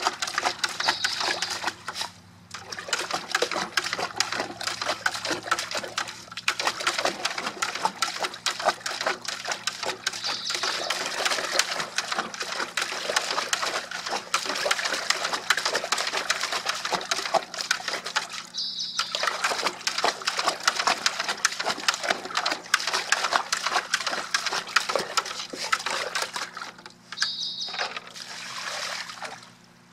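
A dog splashing its muzzle about in a plastic bucket of water: fast, continuous sloshing and splattering, broken by a few short pauses.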